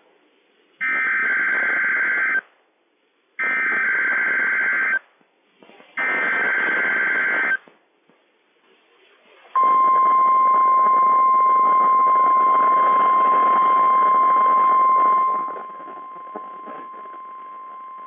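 NOAA Weather Radio Required Weekly Test signal: three bursts of SAME digital header tones, each about a second and a half long with short gaps between, then after a pause of about two seconds the steady 1050 Hz warning alarm tone, which drops to a much lower level about two-thirds of the way through. Radio static hisses under the bursts and the tone.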